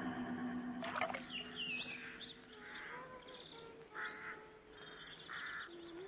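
A held musical chord cuts off about a second in, followed by birds calling and chirping: scattered short chirps and a few lower calls over faint outdoor ambience.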